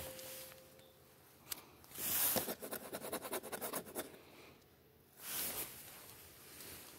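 Scratching and rustling as a cat plays: a fast run of scratchy clicks from about two to four seconds in, with a short rustle a little after five seconds.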